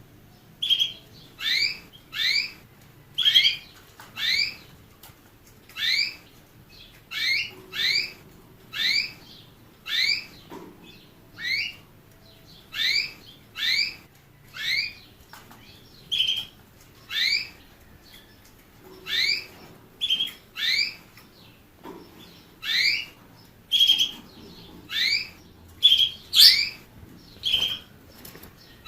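A small finch repeating a short, rising chirp call, roughly one call a second, each call a quick upward sweep in pitch, sometimes two in quick succession.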